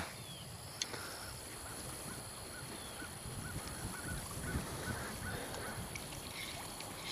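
A bird calling in a run of short, repeated calls, about three a second, for a few seconds starting about a second and a half in. A single sharp click comes just before the calls begin.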